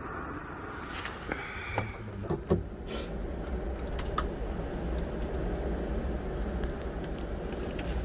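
MSR Windburner canister stove burning with a steady low rumble. A few sharp clicks and knocks and a brief squeak come between about one and four seconds in.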